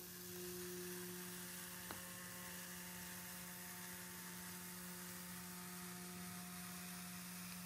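Transformer hum of a 180-watt Chicago Electric soldering gun, a steady faint electrical hum, as its copper-wire loop heats to melt a cutout through foam.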